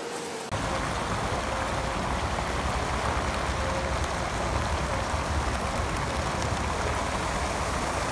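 Fountain water jets arcing and splashing into a shallow pool, a steady rush of falling water that begins suddenly about half a second in.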